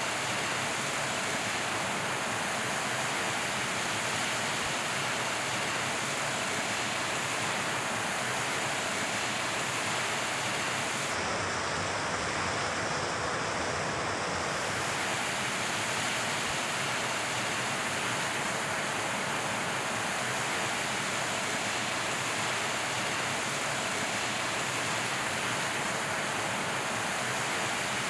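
Forest stream rushing over small rock cascades and a low waterfall, a steady even rush of water that sounds slightly duller for a few seconds in the middle.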